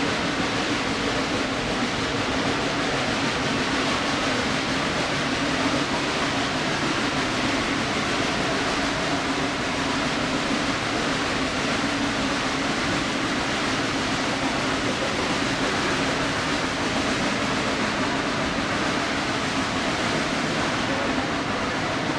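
Steam train heard from an open passenger car: a steady rush of running noise from the locomotive working and the cars rolling on the rails, with a steady low hum underneath.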